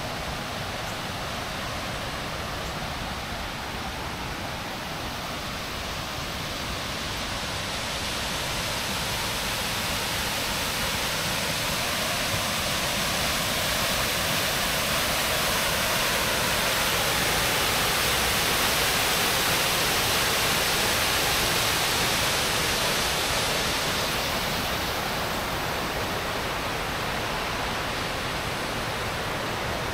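Waterfall rushing steadily. It grows louder toward the middle and then fades a little again.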